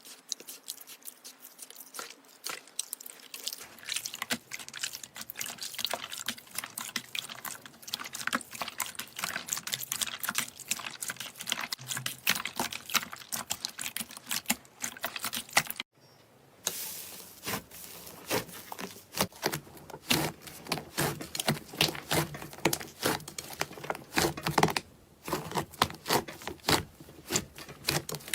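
Slime being squeezed and worked by hand, making a dense run of wet clicks and crackling pops. The sound cuts out briefly about halfway through, then comes back busier and louder.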